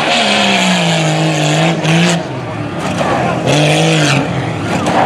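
1992 Jeep Cherokee's engine revving hard under heavy throttle. Its pitch falls and then holds, drops away about two seconds in, and comes back in a second short burst of revs around three and a half to four seconds in.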